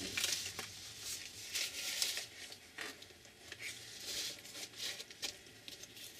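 Paper and craft materials being handled at a work table: irregular crinkling and rustling, in a series of short rustles.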